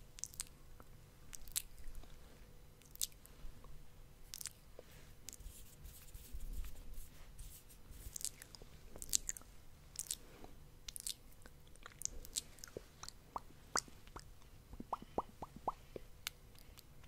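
Close-miked ASMR mouth sounds: irregular wet clicks and smacks of the lips and tongue, with a quick run of softer clicks near the end.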